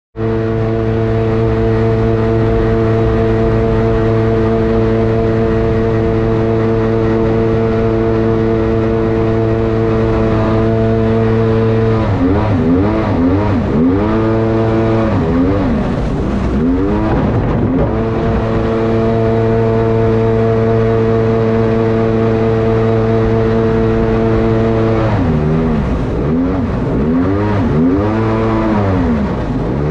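Jet boat engine running under load at a steady pitch, with the revs dipping and rising several times about twelve seconds in and again near the end.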